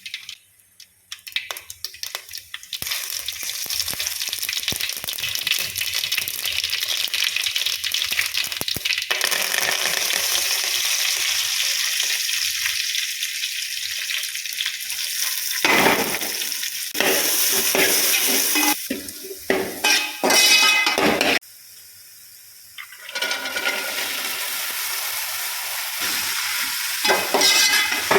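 Food frying and sizzling in a hot pan as it is stirred, a steady hiss with louder flare-ups now and then; the sound breaks off and changes abruptly a few times.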